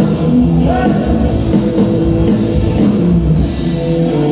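Live band playing amplified music through a PA system, with a steady beat.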